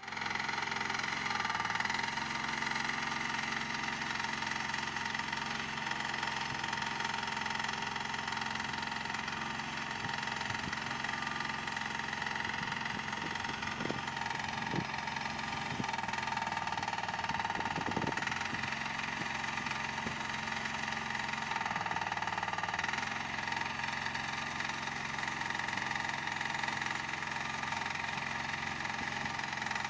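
Mini excavator's small engine running steadily under digging work, with a few sharp knocks near the middle.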